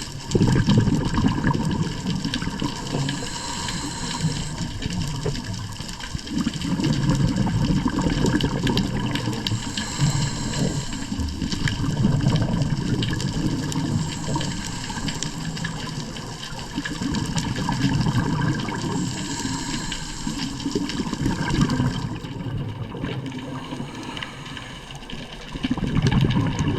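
Water rushing and splashing in repeated surges that swell and ease every few seconds.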